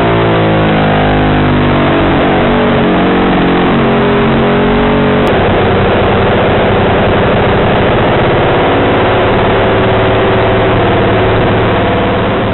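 Short-stroke 1973 Ducati 750 Imola racer's bevel-drive desmo V-twin running hard at racing speed, its pitch rising and falling as it accelerates and changes gear through the corners. The sound fades out near the end.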